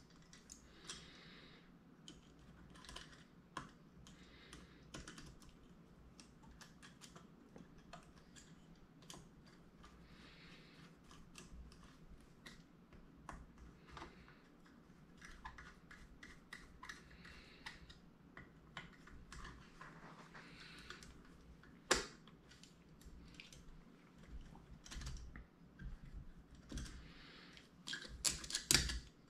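Small metal carburetor parts of a Ford flathead V8 carburetor clicking and tapping lightly and irregularly as they are handled and fitted into the carburetor body by hand. There is a sharper single click about three quarters of the way in, and a louder clatter of parts and a screwdriver near the end.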